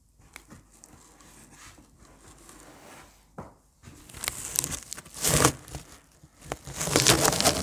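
Packing material rustling and crinkling inside a cardboard box as hands dig through it. It comes in several bursts in the second half, the loudest near the end, after a quiet start.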